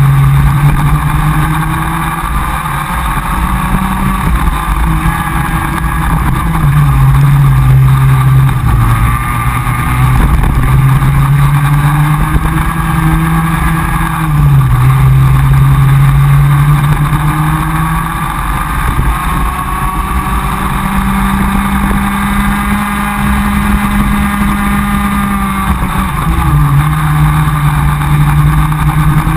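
Comer cadet kart's two-stroke engine at racing speed, heard on board. It revs up along the straights and drops in pitch several times as the kart slows for corners.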